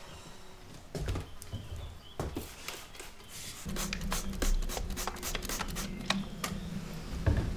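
Hand spray bottle squirting water onto a round clay-crusted wheel bat in a quick run of short sprays, after a few knocks of the bat being handled. A low steady hum of the electric potter's wheel sets in about halfway through.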